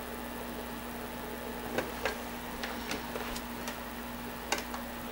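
Small scattered clicks and ticks from a cotton swab and fingers working over the metal chassis and levers of a slim Compaq 5.25-inch floppy drive's eject mechanism as grease is spread on it, coming from about two seconds in, over a faint steady hum.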